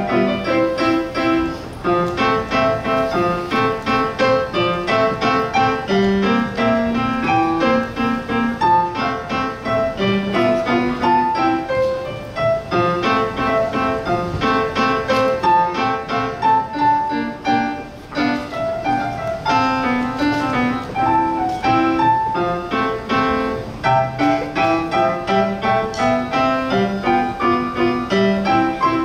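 Solo piano piece, a steady stream of notes in a moderate rhythm, with a short lull about 18 seconds in.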